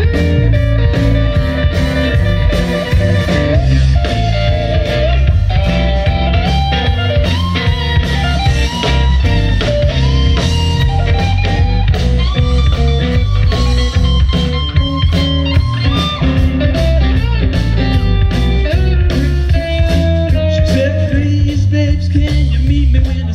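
Live blues band playing: lead electric guitar over bass guitar and drum kit.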